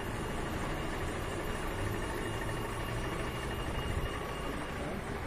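Steady low rumble and hiss of city traffic on a wet street, with a faint high whine that stops about four seconds in.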